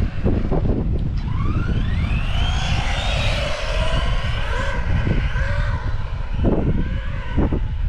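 Arrma Big Rock 3S RC truck's brushless motor whining, rising in pitch as it speeds up over the first few seconds and then falling away as it slows. Heavy wind rumble on the microphone throughout.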